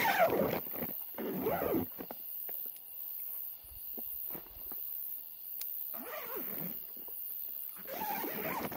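Four drawn-out pitched calls, each rising and then falling in pitch, about a second or two apart at first and again near the end. Faint steady high tones run underneath.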